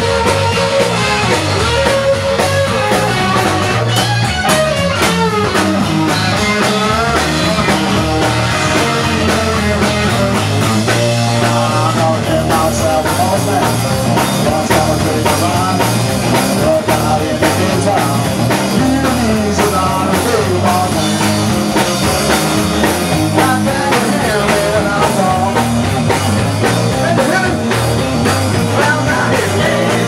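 Rock music with guitar, drums and a singing voice.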